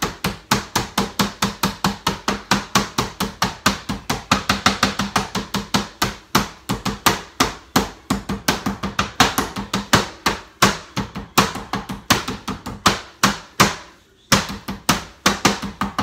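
Meat mallet's ridged face pounding boneless chicken breast flat on a cutting board to thin it: rapid, steady strikes, about four or five a second, with a short break near the end.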